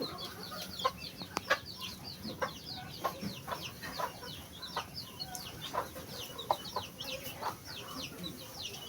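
Chicks peeping continuously in quick, short, falling chirps, with a few brief clucks mixed in.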